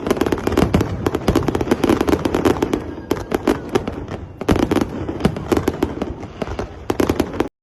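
Fireworks display going off: a dense, continuous run of crackling pops and bangs, many per second.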